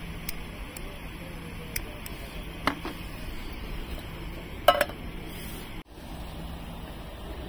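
Camping cookware and utensils being handled to make coffee: several light metal clinks and knocks, the loudest a short ringing clink about two-thirds of the way in.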